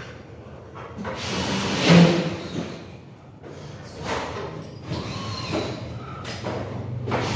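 Scraping and bumping of a large ceiling panel being pushed up and fitted against the metal ceiling framing, in uneven bursts, the loudest about two seconds in.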